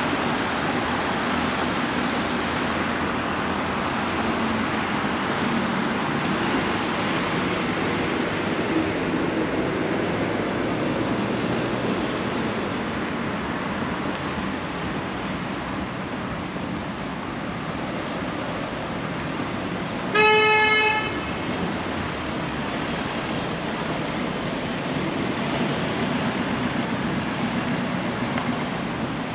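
Steady city street traffic noise, with one short vehicle horn toot about two-thirds of the way through.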